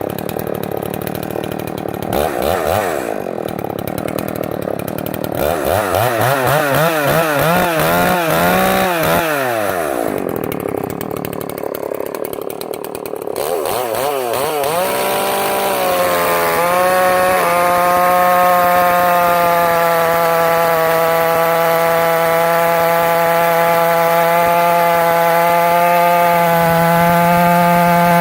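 Echo CS-800P 80 cc two-stroke chainsaw, ported with an opened-up exhaust port, revving up and down in the first half. About two-thirds of the way in it settles into steady running at high revs.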